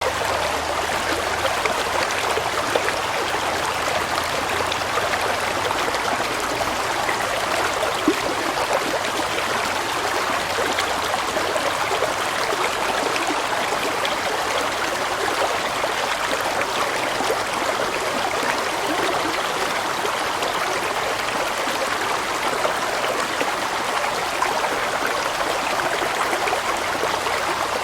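Flowing water, a steady unbroken rush with no pauses or changes.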